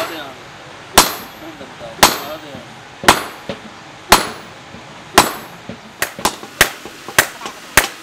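Hammer blows on a red-hot leaf-spring steel cleaver blade lying on an anvil, each a sharp metallic strike with a short ring. About one blow a second at first, then quicker, uneven blows from about six seconds in.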